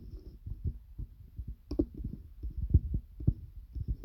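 Handling noise from a hand-held phone being tapped and gripped: irregular soft low thumps, several a second, with one sharper click a little under two seconds in.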